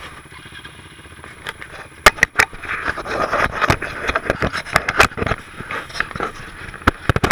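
Quad bike engine running, heard from a camera mounted on the quad, with sharp knocks and clatter about two seconds in and again near the end. The engine sound is loudest through the middle.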